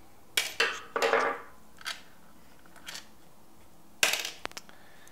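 A handful of separate small clicks and clatters as screws, nuts and a screwdriver are handled and set down on a tabletop, with a quick run of knocks near the end.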